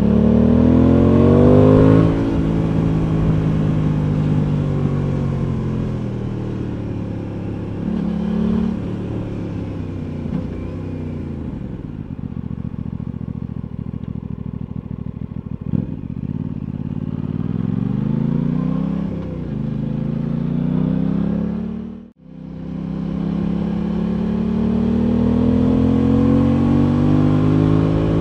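Aprilia Tuono 660's parallel-twin engine heard from on board. It pulls hard at first, then falls away as the bike slows to a low, steady tick-over around the middle. It then pulls away again, rising in steps through gear changes, with the sound cutting out for a moment about three-quarters of the way through before climbing again.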